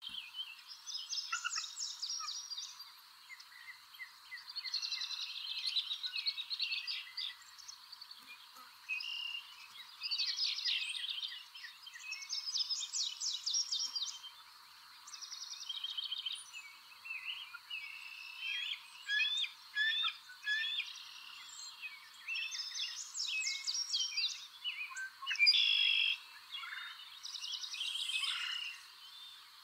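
Several birds singing and calling from the trees, a busy mix of rapid trills, repeated notes and chirps coming in bouts, with a faint steady high tone underneath.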